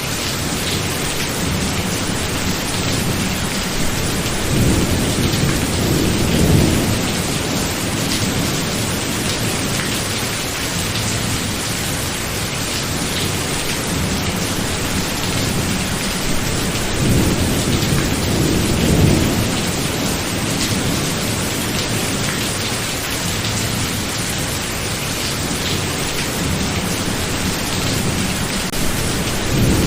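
Heavy steady rain in a thunderstorm, with low thunder rumbling and swelling twice, about a third of the way in and again just past halfway, and starting again at the very end.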